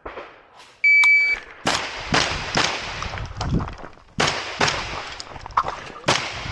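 An electronic shot timer gives one start beep, and about a second later a shotgun begins firing in practical-shooting competition: a string of loud shots in quick succession, each ringing out briefly, about half a second apart.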